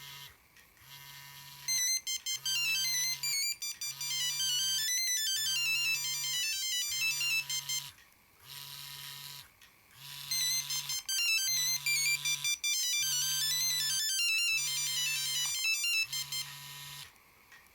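Ericsson T20e mobile phone ringing with an incoming call, playing its ringtone: a fast melody of high electronic beeps. The melody plays twice with a short pause between, over a low buzz that pulses about once a second.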